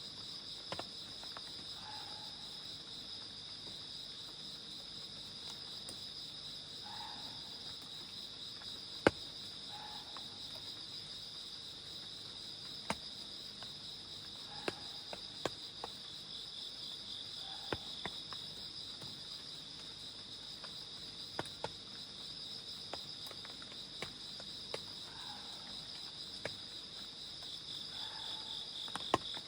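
Crickets and other night insects trilling in a steady, unbroken chorus. Scattered sharp ticks of raindrops fall through it, one louder than the rest about nine seconds in, and a faint soft call recurs every few seconds underneath.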